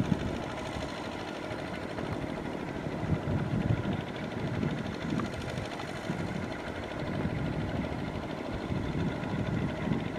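Kubota RT120 single-cylinder diesel engine of a two-wheel walking tractor running steadily as the tractor works through a flooded rice paddy.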